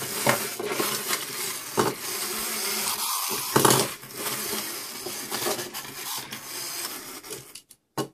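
Clockwork motors of wind-up Pac-Man and ghost toys buzzing as they run, with hard plastic toys clicking and knocking against each other and one louder knock midway. The buzz dies away near the end.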